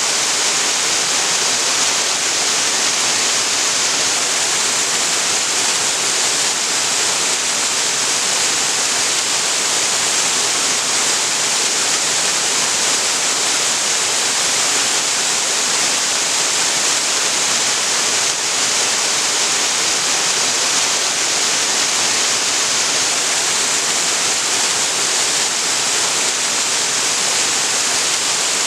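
Waterfall pouring steadily into a creek: a constant, even rush of falling water with a bright hiss.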